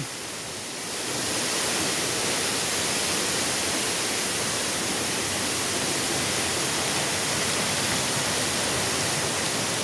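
Waterfall rushing steadily, an even hiss of falling water spread across all pitches, a little quieter for about the first second and then holding level.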